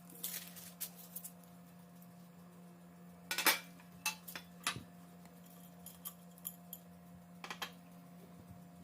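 Kitchen utensils and dishes clinking and knocking in a series of irregular sharp clinks, the loudest about three and a half seconds in.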